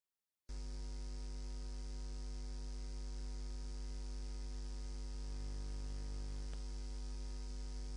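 Steady electrical mains hum with a buzz of its overtones and a faint hiss, starting abruptly about half a second in after dead silence. A faint click sounds near the end.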